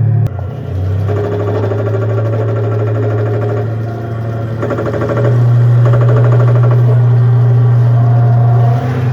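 An RC model M1A2 Abrams tank's sound unit plays a steady low engine rumble. A short click comes about a third of a second in, and the rumble steps up louder a little after five seconds. A fluttering whir above it comes and goes.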